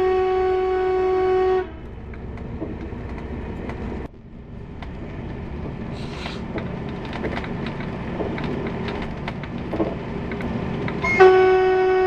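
Horn of a Y2 diesel multiple unit sounding one long steady note, heard from inside the carriage, warning at an unguarded level crossing; it cuts off about a second and a half in. In the gap the carriage's running rumble and clicks of the wheels on the rails are heard, and the horn sounds again about a second before the end.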